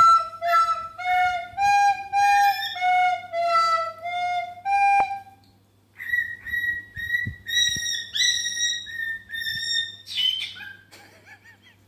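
A plastic soprano recorder plays a slow stepwise melody of about a dozen notes, stopping about five seconds in. After a short pause, with the recorder held up to it, a cockatiel gives a run of higher, steady whistled notes, then a few short scratchy chirps near the end.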